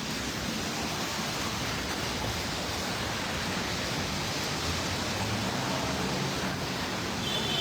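Steady hiss of heavy rain on a city street, with a low rumble swelling slightly about five seconds in.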